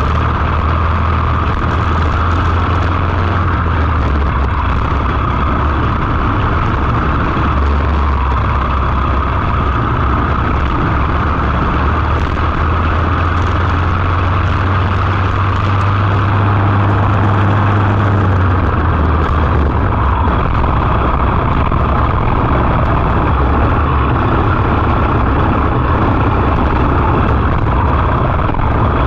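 Briggs & Stratton LO206 single-cylinder four-stroke kart engine running at racing speed, heard onboard the kart. Its pitch climbs through the middle and drops back about two-thirds of the way through as the kart speeds up and slows for corners.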